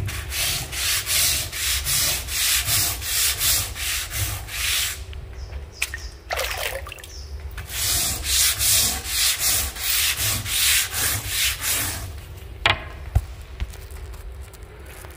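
Stiff hand scrub brush scrubbing wet wooden deck boards in quick back-and-forth strokes, about two a second, while the mould-cleaned deck is rinsed with water. The strokes come in two spells with a pause in the middle, then ease off near the end with a couple of short knocks.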